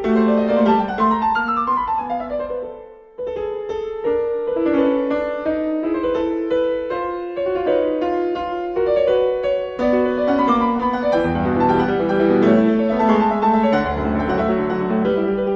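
Background piano music: a melody with many quick notes over a sustained low line, briefly thinning out about three seconds in.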